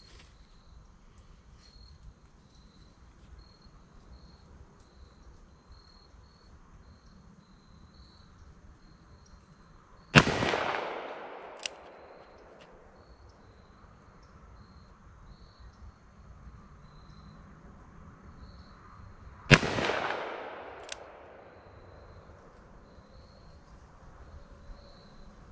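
Two shots from a Ruger Blackhawk revolver firing .45 Colt handloads, about nine seconds apart. Each is a sharp crack followed by an echo dying away over a couple of seconds. A short click comes about a second and a half after each shot.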